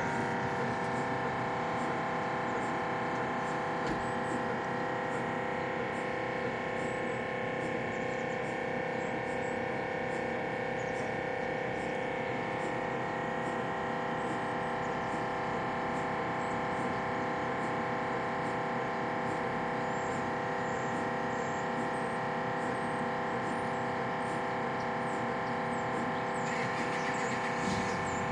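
MRI scanner in a mobile trailer running a scan sequence, heard from outside the trailer: a steady drone of many held tones stacked together, with no break.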